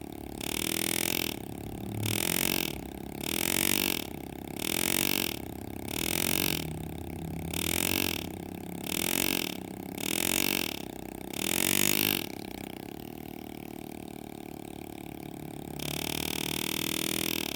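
Pneumatic air graver handpiece buzzing in about a dozen short bursts, roughly one a second, each rising and falling in pitch as a shade cut is driven into sterling silver. It pauses for a few seconds, then buzzes steadily again near the end.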